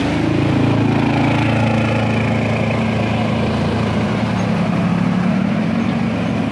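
Diesel autorickshaw engine running steadily at low revs close by, its pitch drifting a little, with motorcycle engines mixed in near the end.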